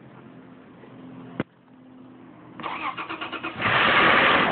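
Toyota FJ Cruiser's 4.0-litre V6 cold-started: a faint hum and a single click, then the starter cranks for about a second before the engine catches and runs loudly. On catching it makes a momentary flapping noise, which the owner suspects comes from the valve train; different oil filters, tried against oil drain-back, have not cured it.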